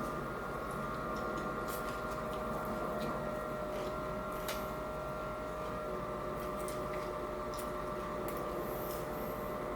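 Close-up eating sounds, a few soft wet clicks of chewing a fish taco, over a steady background hum.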